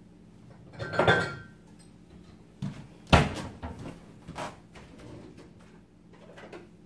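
Kitchen cupboard sounds while a bowl is fetched: a clatter with a brief ring of dishes about a second in, a sharp knock a little after three seconds, then a few lighter knocks.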